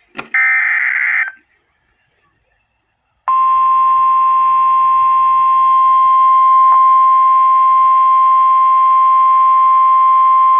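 A roughly one-second burst of Emergency Alert System digital header data tones, then, after about two seconds of quiet, the National Weather Service's single steady 1050 Hz attention tone, loud and unbroken. The attention tone signals that a weather warning broadcast is about to follow.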